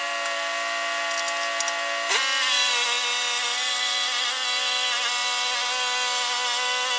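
Sawmill engine running steadily under load while the saw cuts boards from a log, with a brief change in engine pitch about two seconds in.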